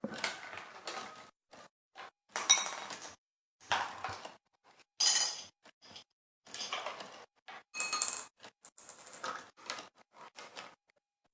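Hard objects clinking and rattling in repeated short, irregular bursts, some with a brief metallic ring.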